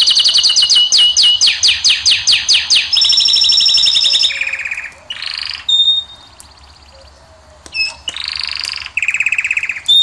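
A canary singing a varied song of quick repeated falling notes and fast rolling trills. The phrases change every second or two, with a quieter pause a little past the middle.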